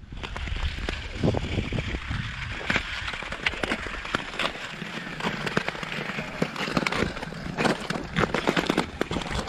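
Ice skate blades scraping over rough natural lake ice: a steady scratchy hiss broken by many sharp clicks and crackles.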